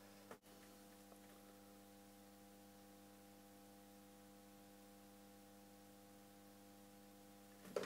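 Faint, steady mains hum, a stack of even tones over a near-silent background, with a brief dropout about half a second in.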